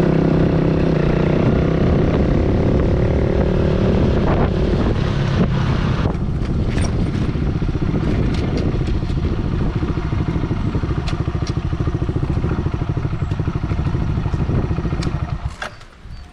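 Kawasaki KSR110 single-cylinder motorcycle engine. It slows from riding to a pulsing idle for several seconds, then is switched off near the end.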